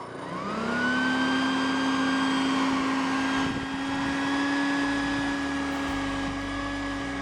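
Stinger 120-volt prospecting vacuum switching on, its motor spinning up to a steady whine within about a second, then running with a loud rush of air.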